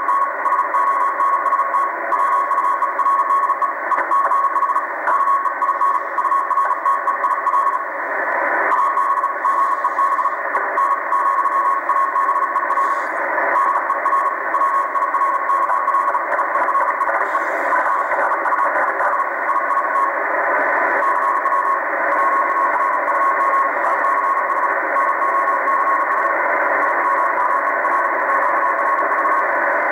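Strong Morse code (CW) signal on the 80-metre amateur band, received in lower sideband on a Tecsun PL880 shortwave radio at 3.550 MHz: a single mid-pitched tone keyed on and off in dots and dashes over steady band hiss.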